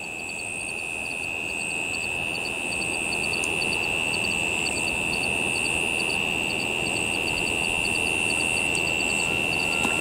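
Night-time insect chorus: one steady high-pitched trill, with faint ticking about three times a second above it, over an even low rushing noise that grows slightly louder during the first few seconds.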